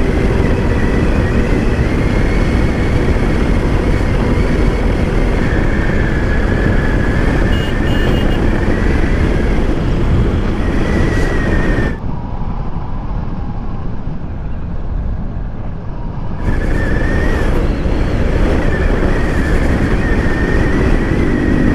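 Wind rushing over the microphone of a camera on a moving motorcycle, with the bike's engine running underneath and a faint high whine that wavers in pitch. About twelve seconds in, the sound turns muffled and a little quieter for about four seconds, then comes back.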